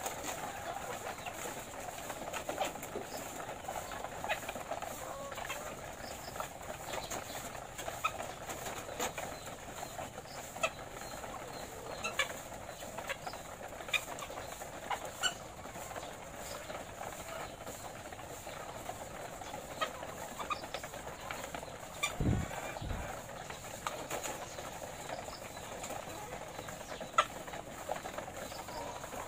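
Many caged laying hens clucking and murmuring together in a steady chatter, with scattered sharp clicks and taps through it. A single brief low thump comes about three-quarters of the way through.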